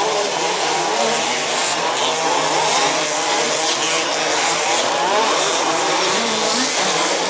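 Several 1/5-scale RC off-road racing cars' small two-stroke petrol engines buzzing at once, their pitches rising and falling as the drivers work the throttles.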